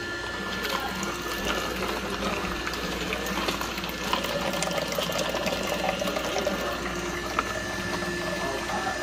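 Electric slow (masticating) juicer running: a steady motor hum with small crackles as the produce is crushed, and juice streaming and splashing into the collecting jug.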